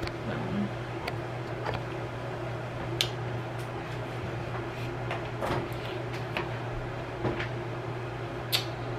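Steady low hum with a few soft clicks and rustles of hair and wig being handled.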